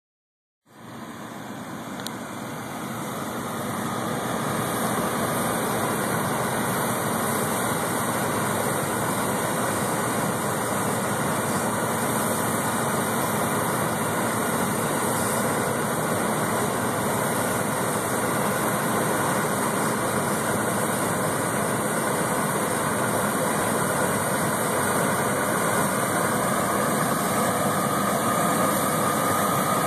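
John Deere 9670 STS combine harvester running steadily, a dense engine and machinery noise that fades in over the first few seconds. A faint whine comes up near the end.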